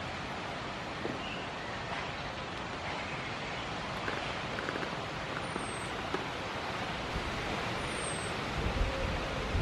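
Steady outdoor wind noise, with a gust buffeting the microphone near the end.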